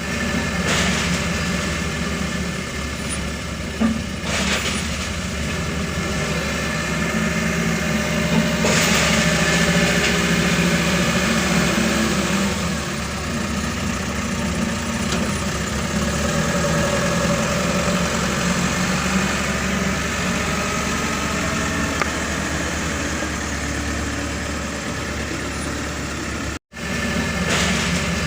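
Diesel engine of a bulldozer loading sand, running steadily with a few brief louder surges. The sound cuts out for an instant near the end.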